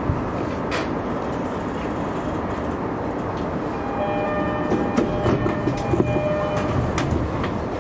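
E131-series electric train running along the line, a steady rumble with occasional sharp clacks from the wheels and rails. About halfway through, a steady chord of several held tones joins in for roughly three seconds.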